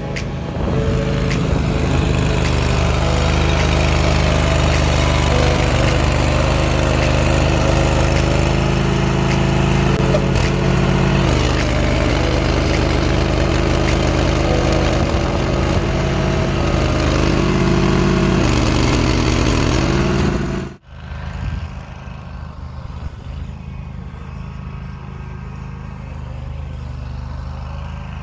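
Engine running steadily at working speed, with a few small shifts in pitch; about two-thirds through it cuts off abruptly and a quieter engine sound carries on.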